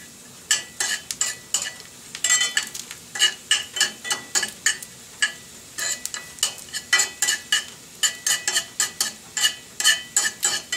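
Metal spoon stirring and scraping food in a cast-iron skillet, quick repeated strokes about three or four a second with a metallic ring, over the sizzle of food frying.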